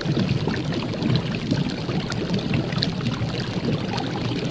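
Steady rushing, watery noise with scattered small crackles, like running or pouring water.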